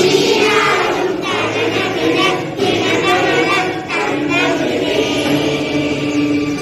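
A group of voices singing a prayer song together in unison, with a steady held tone underneath.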